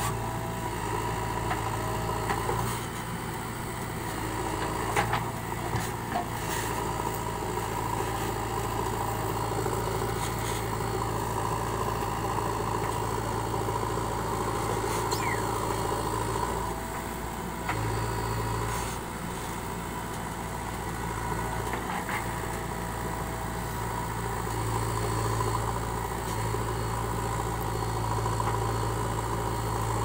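JCB 3DX backhoe loader's diesel engine running steadily as the backhoe works, its level rising and falling a little, with a few short knocks.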